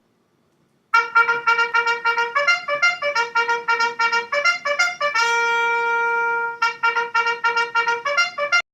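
Trumpet playing a quick bugle-call-like tune of short, separately tongued notes, with one long held note in the middle. The tune cuts off abruptly near the end.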